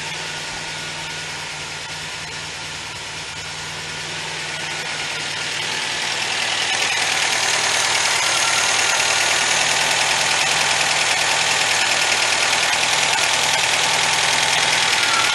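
A 1977 MGB's 1.8-litre B-series four-cylinder engine running steadily at idle, getting louder about halfway through and holding there.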